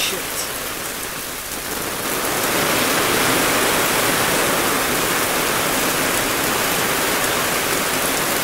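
Heavy rain from a hailstorm pouring down steadily, growing louder about two seconds in and then holding.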